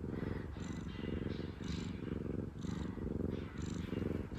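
Domestic cat purring close up, swelling and easing with its breathing about once a second.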